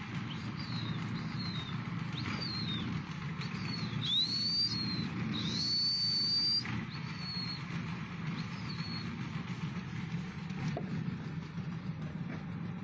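A string of high whistles, some short and falling, one rising and one held for about a second, then tailing off, over a steady low hum.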